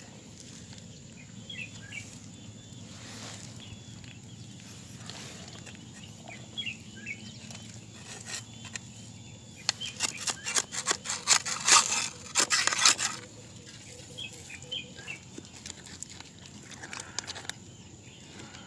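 Outdoor ambience of scattered bird chirps over a low steady rumble. About ten seconds in, three seconds of rapid close-up crackling and clicking form the loudest sound.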